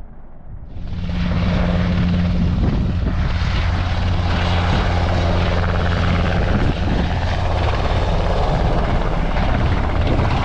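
Search-and-rescue helicopter flying close by: a steady drone of rotor and turbine engine with a strong low hum. It becomes suddenly loud about a second in and stays loud.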